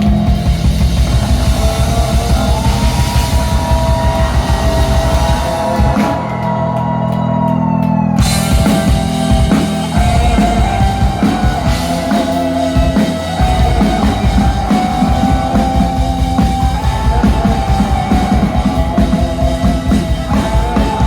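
Rock music with drums, bass and guitar; the drums and bass drop out briefly about six seconds in, then come back.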